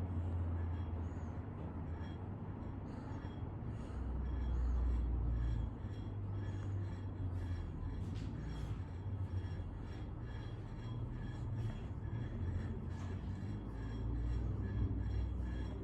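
Old ceiling fan running: a steady low hum with a faint, evenly repeating tick a few times a second.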